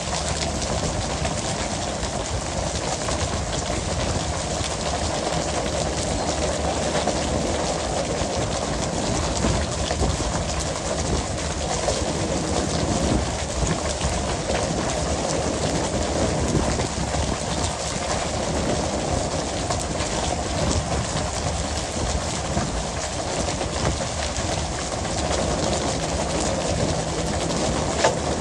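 Steady noise of water splashing and spraying along the boat, with a dense patter of clicks and slaps from skipjack tuna landing and flapping on the deck.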